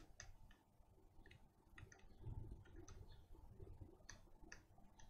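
Near silence with faint, irregular small ticks and clicks from a soldering iron tip working against the solder joints of a mouse micro-switch on a circuit board, as the switch is desoldered.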